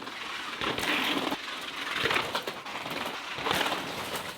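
Mountain bike ridden fast down a rough urban descent: steady rushing tyre and freewheel noise, broken by a series of hard knocks as the wheels hit bumps or steps. The sound cuts off abruptly near the end.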